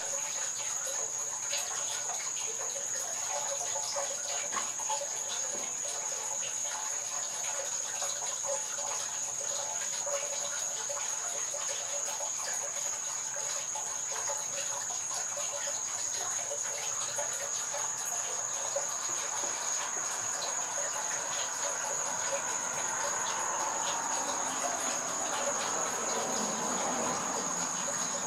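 Steady, high-pitched chorus of insects, one unbroken shrill tone. In the second half a faint low rumble swells up beneath it.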